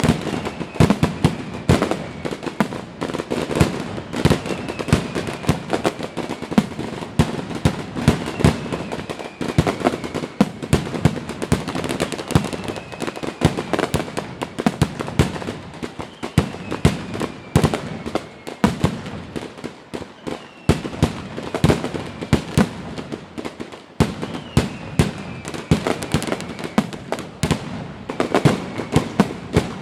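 Fireworks display: a dense, continuous barrage of bangs and crackling bursts, with a short whistle that falls in pitch recurring every couple of seconds.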